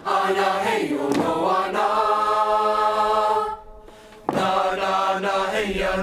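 A choir singing a chant in vocables, several voices together, holding one long chord near the middle, breaking off briefly, then starting again.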